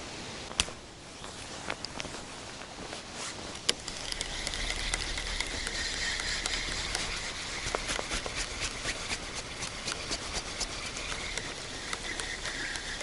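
Wind rumbling on the microphone from about four seconds in, with a hiss and a run of light clicks and rustling; two sharp knocks in the first four seconds.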